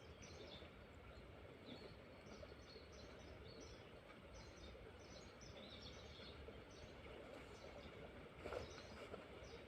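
Near silence: faint outdoor ambience with short, high chirps repeating roughly once a second.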